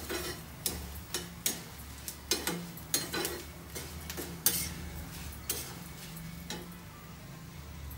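Steel spatula knocking and scraping against a steel kadai as a tempering of peanuts, chillies and curry leaves is stirred, in irregular taps that thin out about six and a half seconds in.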